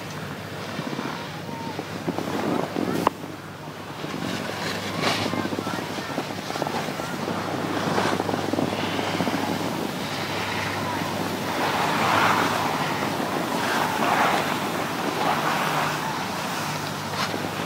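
Skis sliding and scraping over packed snow, with wind buffeting the microphone, and a single sharp click about three seconds in.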